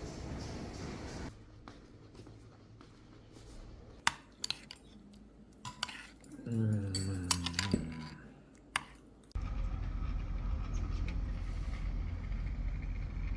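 Dishes and utensils being handled in a kitchen, with several sharp clicks and knocks. A steady low hum starts suddenly about two-thirds of the way through.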